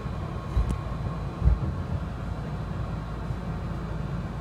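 Keihan limited express train running, heard from inside the Premium Car cabin: a steady low rumble with two short thumps about half a second and a second and a half in, the second the loudest.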